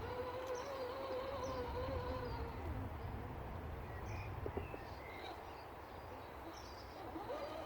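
RC crawler's electric drivetrain whining steadily as it creeps along. The whine fades out about a third of the way in and starts again near the end, with birds chirping in the background.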